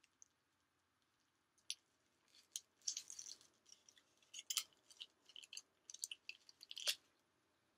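Eating sounds close to the microphone: irregular crackly crunching and crinkling over several seconds, from tortilla chips and a foil-wrapped burrito being chewed and handled.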